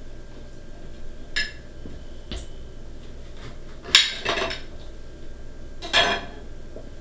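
A kitchen knife knocking and scraping against a plate as an orange is cut in half: a few light clicks, then a sharp knock about four seconds in with a short clatter after it, and another clatter about six seconds in.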